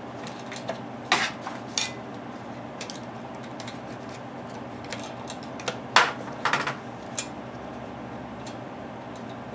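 Small metal parts clinking and tapping as gloved hands work the linkage spring loose on an old Briggs & Stratton engine. A few scattered clinks, the loudest about six seconds in, over a steady low hum.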